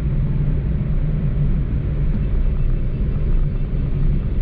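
Steady low vehicle rumble with an even hiss above it, holding level throughout.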